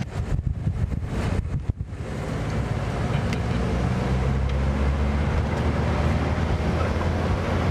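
Engine and road noise heard from inside a moving vehicle, a steady low drone, with wind buffeting the microphone.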